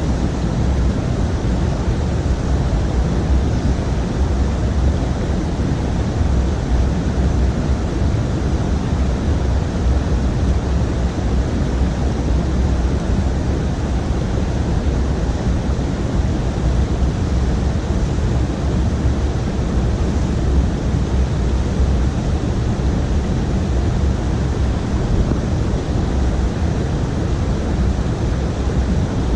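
Steady rushing of flowing creek water, an even noise that does not change.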